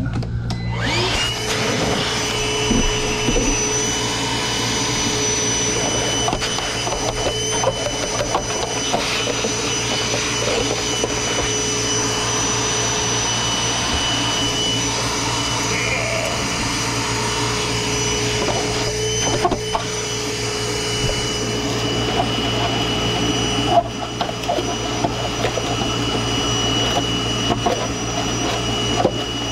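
A vacuum cleaner's motor switching on about a second in, whining up to speed and then running steadily with a high whine, with a short knock about three-quarters of the way through.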